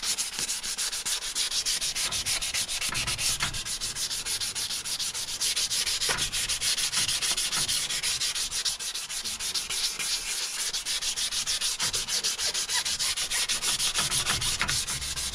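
600-grit wet-and-dry paper rubbed by hand over an alloy wheel rim in quick, even back-and-forth strokes: wet-sanding (flatting) the repaired edge smooth as the last step before paint.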